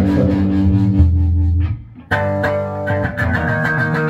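Electric guitars played through amplifiers in a band rehearsal: low notes held and ringing for about a second and a half, a short break, then a new picked riff starting about two seconds in.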